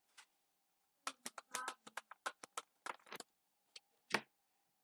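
Deck of reading cards being shuffled and handled: a quick run of crisp clicks and light slaps, then one sharper snap about four seconds in.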